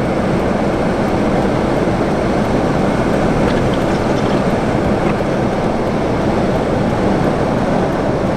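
Strong blizzard wind blasting across the microphone: a loud, steady roar and rumble with a few faint ticks.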